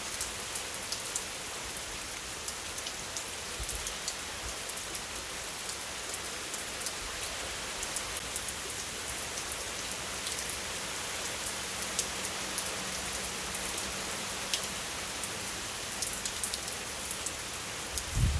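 Steady rain falling, with many single drops ticking close by through the even hiss.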